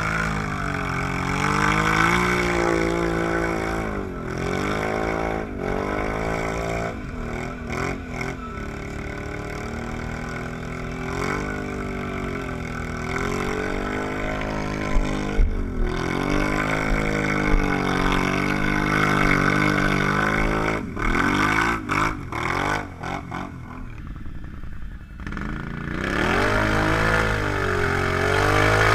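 ATV engine revving up and down again and again as the quad churns through deep mud, its pitch rising and falling every couple of seconds. Scattered knocks and splats of mud come in the middle, and near the end a louder, harder-revving engine takes over.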